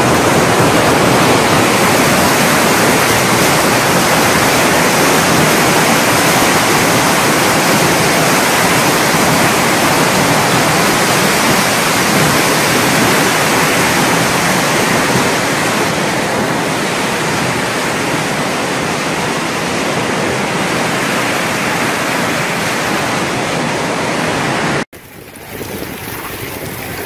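Violent hailstorm: a loud, dense, unbroken rush of hail and wind-driven precipitation. Near the end it cuts off abruptly and gives way to quieter, steady heavy rain.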